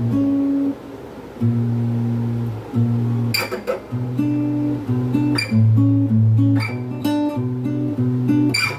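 Jasmine S34C steel-string acoustic guitar, tuned down a whole step to D, played unplugged: a run of picked low notes and chords with a few sharp strums, and a short pause about a second in.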